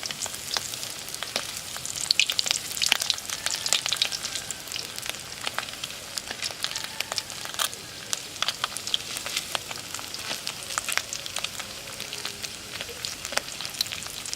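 Battered loaches deep-frying in hot oil: a steady sizzle, broken by many sharp pops and crackles of spitting oil.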